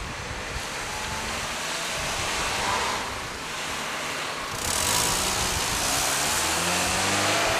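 Cars passing on a street, their engine and tyre noise swelling and fading, with one pass about three seconds in and a louder one starting about five seconds in.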